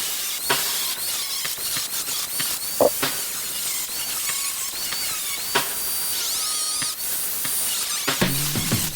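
A power tool running with a high whine that rises and falls in pitch over a steady hiss, with a few short, sharp knocks.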